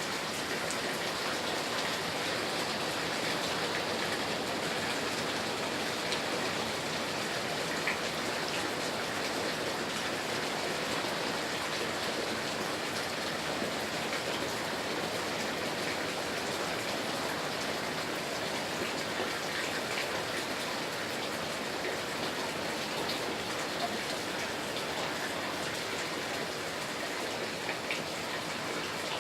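Heavy rain falling steadily, a dense even hiss with scattered drops ticking on surfaces.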